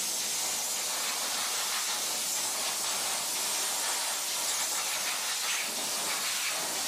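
Hose spraying a steady stream of water with an even, continuous hiss, rinsing a sprayed-on degreaser off.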